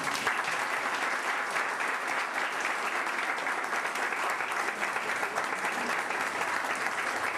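A roomful of seated guests applauding steadily, many hands clapping at once.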